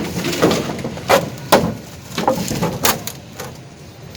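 Irregular knocks and scrapes of a mason's hand tools working mortar, about five sharp strokes in the first three seconds, then quieter.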